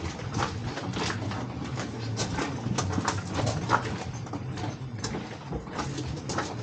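Footsteps of people walking, irregular steps about two a second, over a steady low hum.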